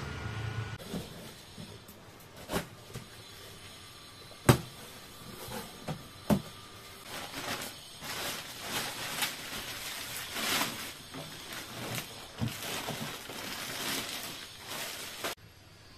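A clear polythene bag crinkling and rustling as a solar inverter unit is worked out of it, with several sharp knocks; the loudest comes about four and a half seconds in. The rustling stops suddenly near the end.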